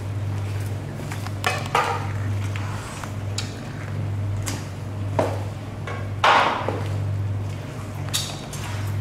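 Scattered knocks and wet slaps as a bluefin tuna carcass is cut with a large knife and its flesh pulled and handled on a wooden table, the loudest about six seconds in, over a steady low hum.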